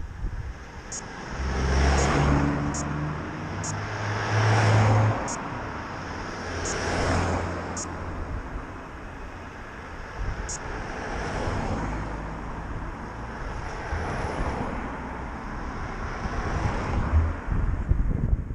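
Road traffic: several cars pass in turn, each one swelling and fading, over a low steady rumble.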